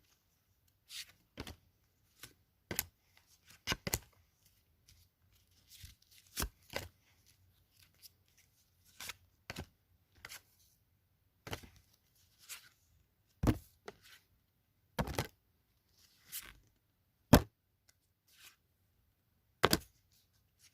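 Score football trading cards being flipped and set down one after another: a string of short, sharp card taps and flicks at an uneven pace, about one or two a second.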